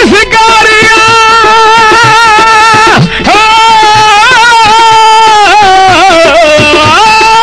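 Punjabi Sufi folk singing: one high voice holding long, ornamented notes with a wavering pitch, dropping off briefly about three seconds in and sliding back up near the end.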